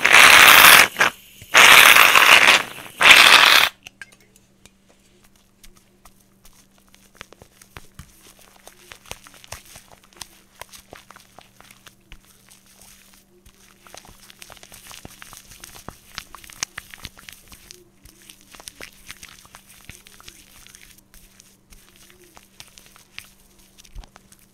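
Foam-covered hands rubbed and worked close to a microphone, giving faint, fine crackling and squishing clicks. This comes after three loud bursts of hiss in the first few seconds.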